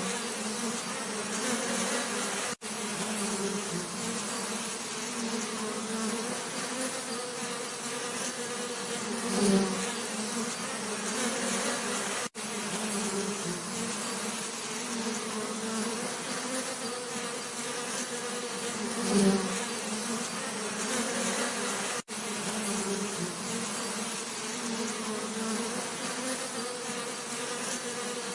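Bees buzzing steadily, a continuous low hum with a hiss above it. About every ten seconds one bee swells louder for a moment as it passes close, and there is a very brief dropout at the same spacing, the join of a repeating loop.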